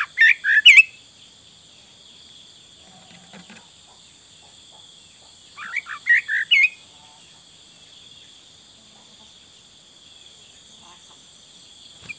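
Sooty-headed bulbul singing two short phrases of four or five loud, bubbly whistled notes, one at the start and another about six seconds in, over a steady high-pitched insect drone.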